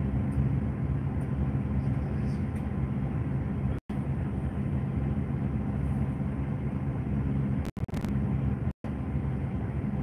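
Intercity coach's diesel engine running with a steady low drone, heard from inside the passenger cabin. The sound cuts out completely three times for a split second.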